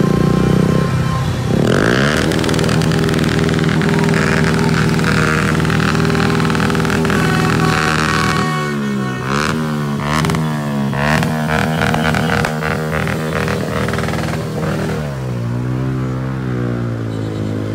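Motorbike engines running in dense street traffic. About halfway through the pitch starts swinging up and down as the engines are revved, and several sharp bangs come in the middle.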